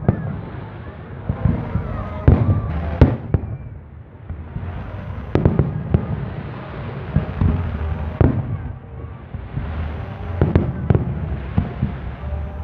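Aerial fireworks display: sharp bangs of shells bursting every second or two, irregularly, with stretches of dense crackling in between.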